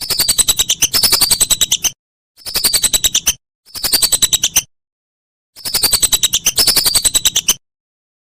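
Whistling duck (belibis) calling in four bursts of rapid whistled notes, each run falling in pitch, with short silent gaps between the bursts.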